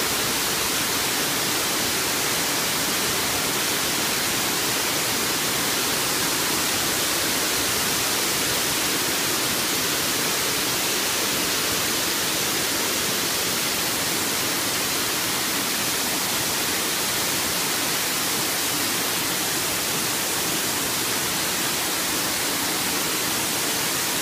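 Water pouring from the perforated arms of a pipe-type liquid distributor as many thin streams splashing onto steel grating: a steady, even hiss.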